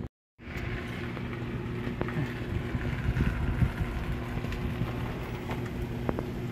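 A steady mechanical hum, like an engine running nearby, with a few faint clicks.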